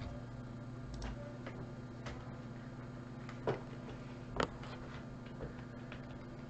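Irregular clicks of a computer keyboard and mouse as the random list is set up, with two louder clicks about three and a half and four and a half seconds in, over a steady low electrical hum.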